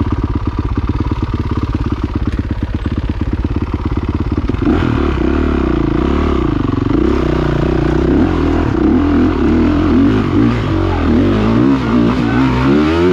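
Motocross motorcycle engine idling with an even pulse, then from about five seconds in revved up and down again and again with throttle blips.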